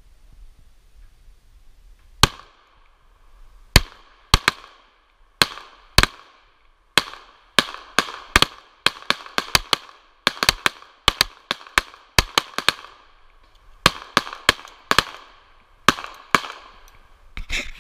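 Pistol firing a long string of about thirty shots, starting about two seconds in, some single and some in quick runs of several a second, each shot trailing a short echo.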